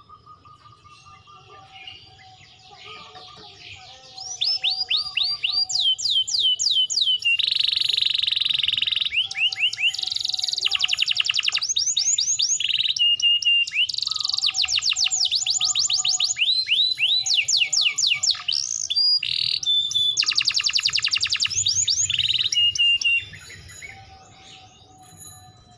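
Domestic canary singing a long song of rapid trills: fast runs of repeated downward-sweeping whistled notes alternating with buzzy rolls. Quieter chirps come first, the full song starts about four seconds in, and it breaks off abruptly a few seconds before the end.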